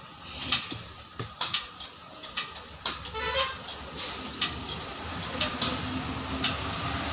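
Irregular small clicks and taps of a thin applicator stick working adhesive onto a speaker's paper cone, with a brief squeak midway. A steady rumbling noise rises about four seconds in.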